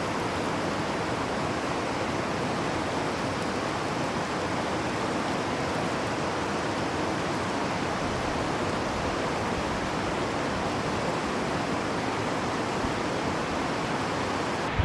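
Steady, even rush of Glymur waterfall, a 198-metre fall, pouring into its canyon.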